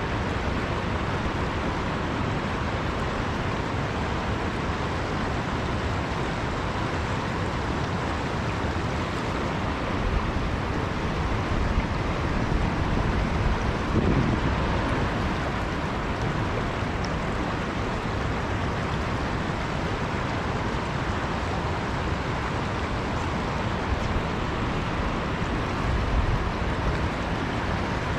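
River current rushing steadily, with a brief low bump about halfway through.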